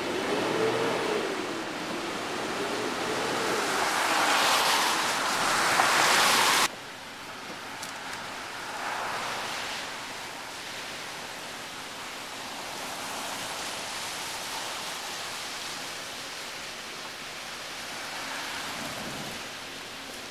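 Steady outdoor rushing noise that swells louder over the first several seconds, then cuts off abruptly about seven seconds in, leaving a softer, even hiss.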